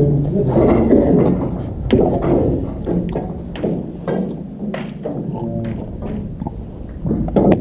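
Snooker balls clicking and knocking on nearby tables, a scattered run of short sharp hits, with indistinct voices in the hall.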